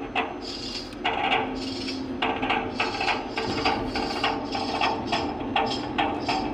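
Background music with a quick, steady percussive beat.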